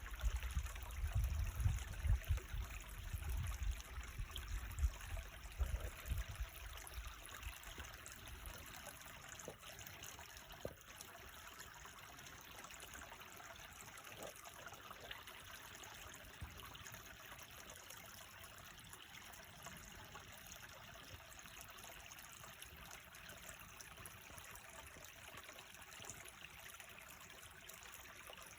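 Creek water running and trickling steadily. Heavy low rumbling on the microphone for the first several seconds, fading out by about eight seconds in.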